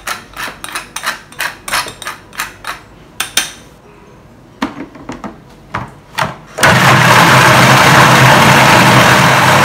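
Stainless steel pepper shaker shaken over a food processor bowl, a quick run of rattling taps about three a second. After a pause with a few clicks of handling, a Magic Mix food processor starts about two-thirds of the way through and runs loud and steady, blending a wet silken tofu and prawn mixture.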